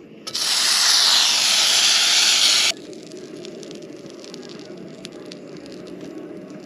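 Butter sizzling loudly in a hot cast-iron grill pan, cutting off suddenly about two and a half seconds in; a quieter steady hiss follows.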